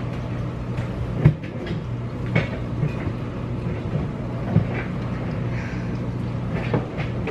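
Several knocks and clunks of cookware being shifted about in a low kitchen cabinet, over the steady hum of a running kitchen appliance.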